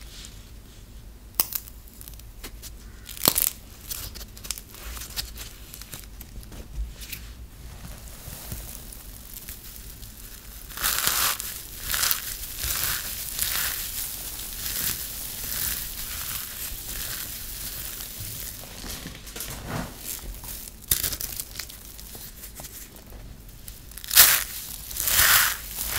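Crispy soap balls of shredded soap being crushed and crumbled between the hands: dry crunching and crackling. A few sharp cracks come in the first few seconds, dense crunching sets in a little before halfway, and the loudest crunches come near the end.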